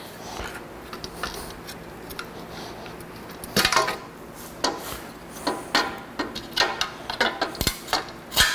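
Hammer tapping on the steel plate on a Case tractor's diesel engine block: an irregular run of sharp metallic knocks, some ringing, starting about three and a half seconds in and coming quicker near the end. The plate is being worked loose off a stuck dowel pin.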